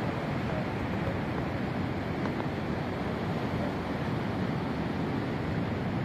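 Steady sea surf on the beach mixed with wind noise on the microphone, an even wash of sound with no distinct events.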